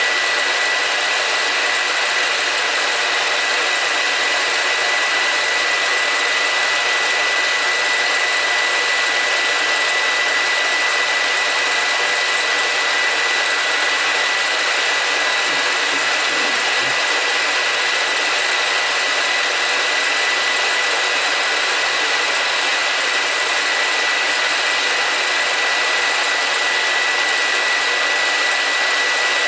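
Film projector running: a steady whirring hiss with a thin, high, unchanging whine over it.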